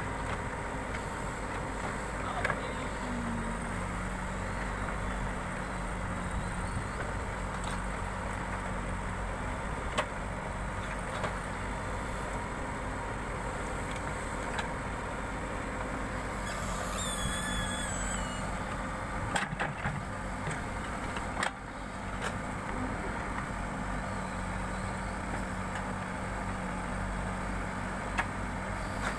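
Backhoe loader's diesel engine running steadily, with a few sharp knocks and a brief high warbling sound about midway.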